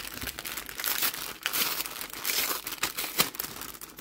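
Paper packaging crinkling and rustling in handling, with many small sharp crackles, as the spell kit's paper bag is opened.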